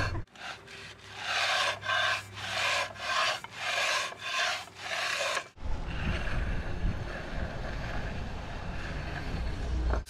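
A long-handled concrete groover scraping back and forth across fresh wet concrete in quick strokes, about two a second. About halfway through the scraping stops and a steady noisy rumble takes over.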